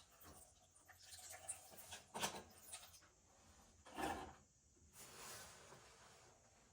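Faint handling noises: a few short rubbing and scraping sounds of parts being worked by hand, the louder ones about two and four seconds in.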